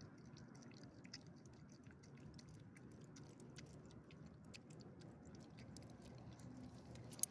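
Faint wet clicks and smacking of a small dog chewing food from a hand, with one sharp click near the end.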